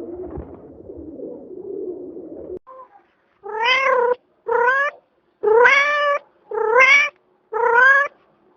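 A domestic cat meowing five times in a row, each meow rising then falling in pitch. Before the meows, a fainter, low sound stops about two and a half seconds in.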